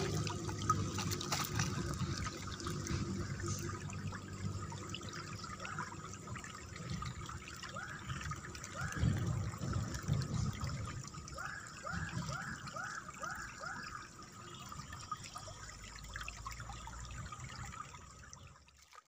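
River water trickling over stones, a steady wash, with a run of short falling whistle-like notes partway through; it fades out just before the end.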